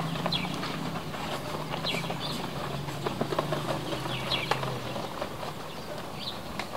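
Running feet tapping on a dirt pitch in quick, uneven succession, with scattered short high chirps and a low steady hum that stops about five seconds in.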